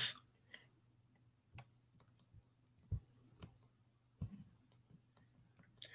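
Faint, irregular clicks and taps of handwriting input on a computer's digital whiteboard, roughly one every half second to second.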